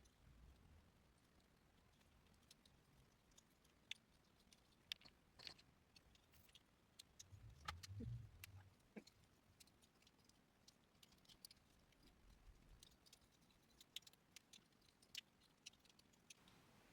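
Faint, scattered clicks and light handling noise from a plastic Transformers toy figure and its packaging being worked by hand, with a soft low thump about eight seconds in.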